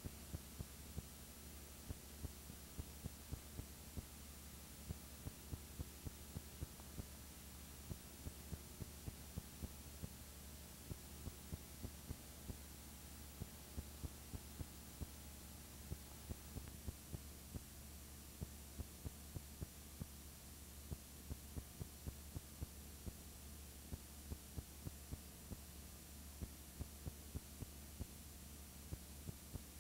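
Faint steady low electrical hum with irregular sharp clicks a few times a second: the background noise of a transfer of silent old film footage, with no recorded sound of its own.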